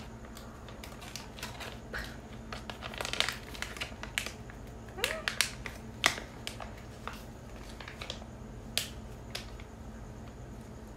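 Hands handling an opened sheet-mask packet and the essence-soaked sheet mask: scattered crinkling, rustling and small clicks, busiest around three and six seconds in.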